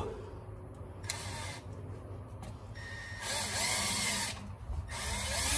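Cordless drill running in several short bursts of changing speed as its bit is driven through the bottom of a spin-on oil filter's metal can, punching a hole so the filter drains before removal.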